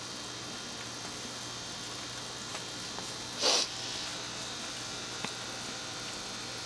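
Steady low background hiss with a faint hum, and one short burst of noise about three and a half seconds in, with a few faint clicks around it.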